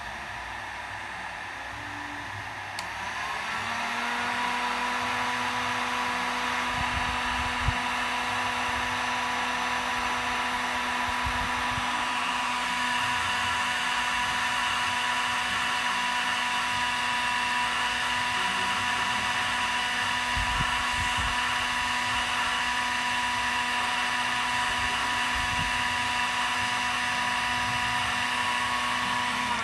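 HOYOMA HTHG-2000C 2000 W heat gun running and blowing hot air: a steady fan whir with a motor whine. The whine rises as the motor speeds up a few seconds in, then holds steady.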